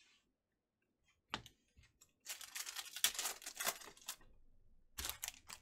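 Foil wrapper of a Panini Prizm basketball pack being torn open and crinkled by hand: a dense crackling rustle lasting about two seconds, preceded by a single sharp click and followed by a short burst of crinkling near the end.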